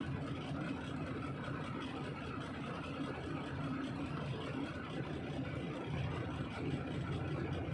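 A vehicle engine running steadily, with an even rumble and no sudden events.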